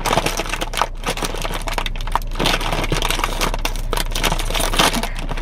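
A bag of chicharrones being opened and handled, its plastic wrapper crinkling and crackling in many quick, irregular rustles.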